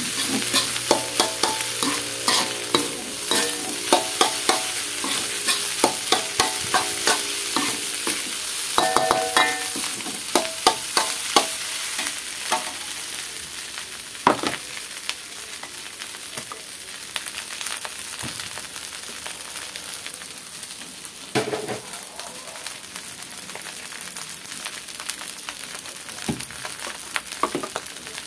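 Metal spatula scraping and knocking against an aluminium wok as egg fried rice is stir-fried, each stroke giving a short metallic ring, over a steady sizzle. The stirring stops about twelve seconds in, leaving the rice sizzling with only an occasional knock.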